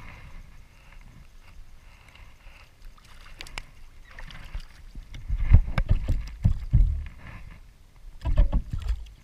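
Water splashing and sloshing close to the microphone as a hooked fish is drawn in by hand, with heavy low buffeting on the microphone that is loudest in the middle and again near the end.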